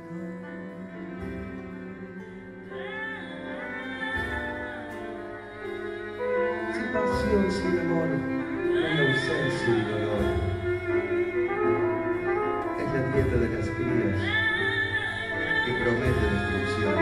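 Live band music: a slow piece over piano and double bass, with a sustained lead melody line that gets louder about six seconds in.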